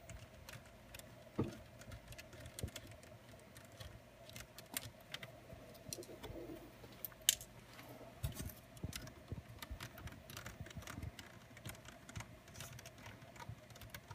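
Faint, irregular small clicks and taps of a small Phillips screwdriver on a laptop's metal screen-mounting screws, with handling of the plastic and metal parts.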